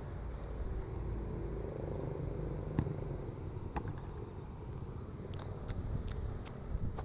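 Steady high-pitched chirring of insects such as crickets over a low rumble, with a few short sharp clicks in the second half.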